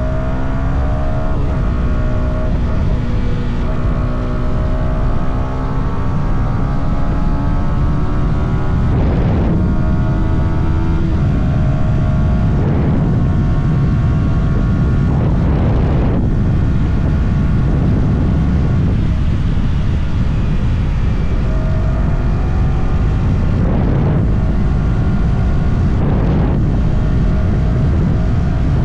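Yamaha R125's single-cylinder four-stroke engine, on its stock exhaust, pulling under acceleration: the revs climb, broken by several quick gear changes, each followed by the revs rising again. Wind rushes over the microphone.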